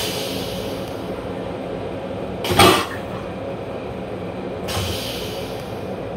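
Steady running rumble and hum of a Metro-North M7 electric railcar heard inside its small restroom, broken by one short, loud noise of about half a second a little before the middle and a fainter one about two seconds later.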